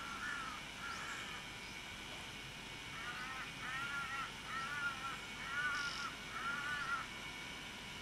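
A bird calling: two short calls near the start, then a run of five short calls in quick succession from about three seconds in.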